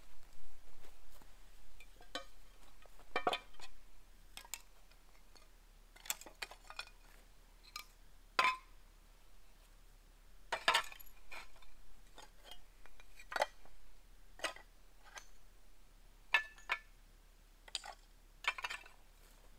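Old red clay roof tiles clinking and knocking against one another as they are picked up and stacked by hand: a string of sharp, irregularly spaced clinks, some with a short ring.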